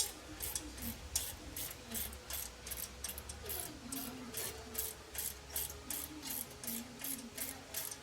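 Ratchet wrench clicking in an even rhythm, about three clicks a second, as it runs nuts down.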